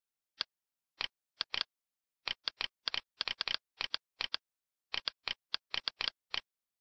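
Computer mouse buttons clicking: a fast, irregular run of short, sharp clicks, often in quick pairs.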